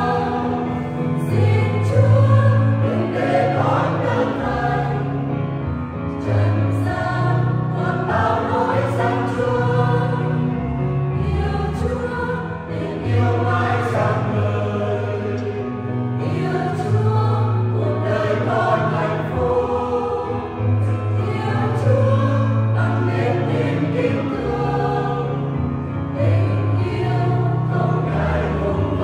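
Mixed church choir singing a Vietnamese Catholic hymn in parts, with electronic keyboard accompaniment holding low sustained notes beneath the voices.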